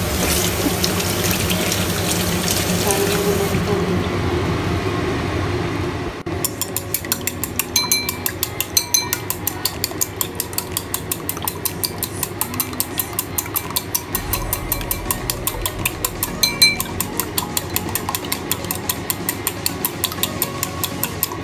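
For the first six seconds, water runs steadily from a kitchen tap into a stainless-steel sink. After that, chopsticks beat raw eggs against the side of a ceramic bowl, a quick, steady clicking that goes on to the end.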